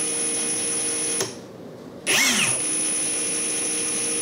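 HPT 185 mid-torque cordless impact wrench, Makita-battery type, running free with no load in its slow-turning auto mode: a steady motor whine with a high tone and no hammering. The run stops about a second in, then the motor spins up again with a short rising whine about two seconds in and runs steadily.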